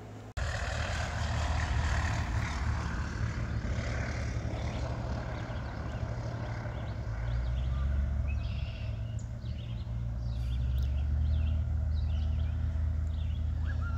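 Small single-engine floatplane droning in the distance as it comes in low over a lake to land, under a steady low rumble. Short high chirps join in during the second half.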